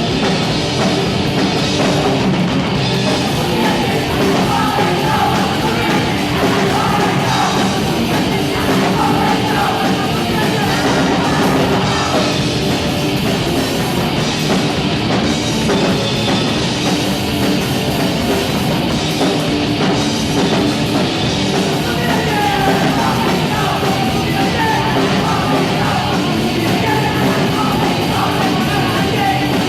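Punk rock song played by a full band at a steady loud level, with shouted vocals coming in at times.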